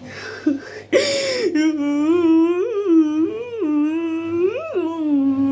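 A dog howling: one long, steady howl with several quick upward yelps in pitch, starting about a second in after a short noisy breath.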